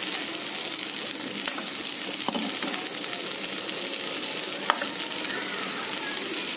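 Okra frying in oil in a kadhai, sizzling steadily while a metal spoon stirs it. A few light clicks of the spoon against the pan.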